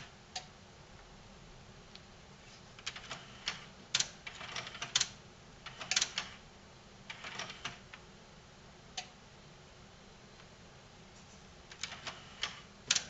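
Irregular light clicks and taps of metal multimeter probe tips being moved onto and against the pins of a power connector and the metal chassis, in small clusters with pauses between.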